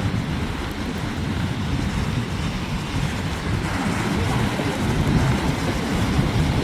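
Wind buffeting the microphone, a steady rumbling gusty noise, over the wash of rough sea surf.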